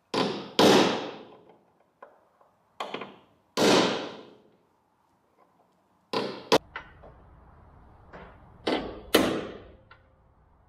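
Ball-pein hammer striking a punch held on the steel sill of a Holden Torana, marking the centres of spot welds: about eight sharp metallic strikes, mostly in pairs of a light tap then a harder blow, each with a short ringing decay.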